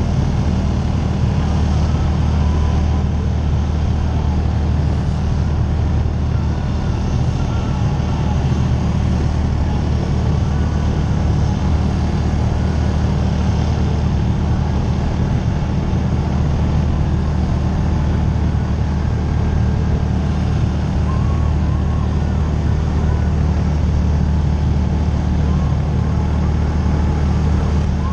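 Side-by-side UTV engine running steadily while driving, heard from the hood: a low, even drone with no clear change in pitch.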